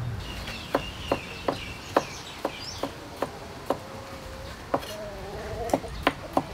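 A cleaver slicing carrot on a wooden cutting board: a steady run of sharp knocks of the blade on the board, about two to three a second, with a short pause midway. Birds chirp faintly behind.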